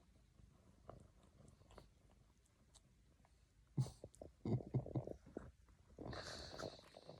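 Cat licking close to the microphone: soft mouth clicks, then a run of louder wet licks about four to five seconds in, followed by a short rustle near the end.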